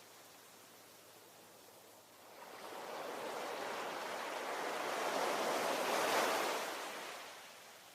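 Ocean waves: a quiet lull, then a single wave builds from about two seconds in, rushes loudest around six seconds and washes away toward the end.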